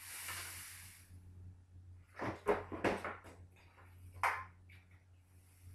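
A short hiss of leftover Freon escaping from the window air conditioner's refrigerant line, fading out within about a second, as the sealed system is checked for being empty. Then several sharp metal knocks and clatters as the unit is tipped and handled, the loudest two to three seconds in and one more at about four seconds.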